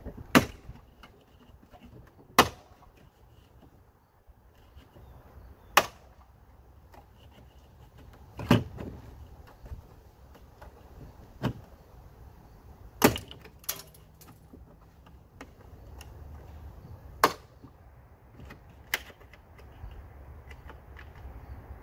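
Sharp plastic snaps, about nine of them at uneven intervals of a few seconds, as the retaining tabs of a Lippert screwless RV window frame are forced apart by removal clips and pop loose; some of the tabs break rather than release.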